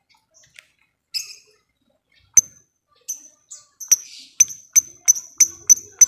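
Lovebird calling: a few scattered sharp, high chirps, then from about four seconds in an evenly spaced run of sharp chirps, about three a second. This is the rapid ticking call that lovebird keepers call 'ngetik'.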